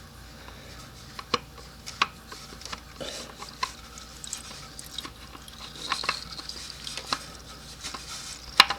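Sporadic sharp metallic clicks and light clinks of a crushed spin-on oil filter being worked loose by hand from under a Kawasaki ZX-10R, irregularly spaced with quiet handling between.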